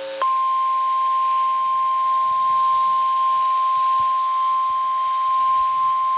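NOAA Weather Radio warning alarm tone: one steady, unbroken 1050 Hz tone signalling that a warning, here a tornado warning, is about to be broadcast. It starts a fraction of a second in, cutting off the last notes of a chime.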